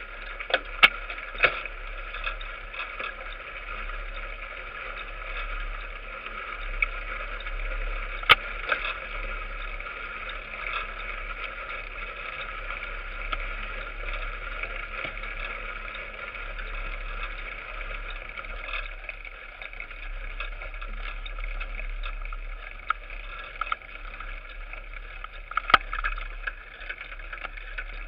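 Mountain bike rolling along a gravel forest road, heard from a camera on the handlebars: a steady rush of tyre and wind noise with a low rumble, broken by sharp knocks and rattles from bumps, a few near the start, one about eight seconds in, and a cluster near the end.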